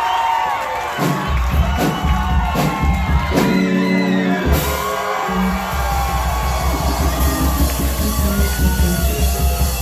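Concert crowd cheering and whooping over a live rock band; the drums and bass come in about a second in and keep a steady beat under the shouts.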